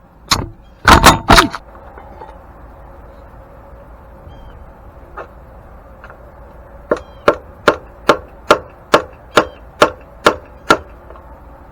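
Metal hammer blows knocking out the old soft lead-alloy bearing metal of a grain mill's shaft bearing: a few strikes near the start, then after a pause a run of about nine evenly spaced blows, a little over two per second.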